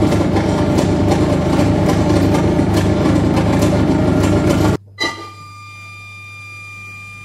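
Harsh noise from a saxophone played as a feedback instrument: a dense, loud wall of feedback noise over a low hum. It cuts off abruptly about two-thirds of the way through, a short pop follows, and then only a quieter hum with a few thin, steady high tones remains.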